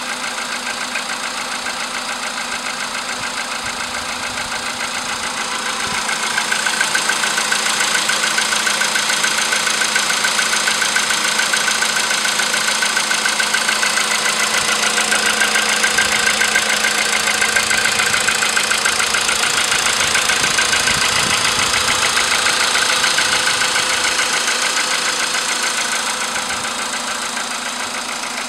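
Volkswagen Polo sedan's 1.6-litre CFNA petrol engine idling with a rapid, even knocking, after a start on a cool morning. The sound grows louder about six seconds in and drops back near the end.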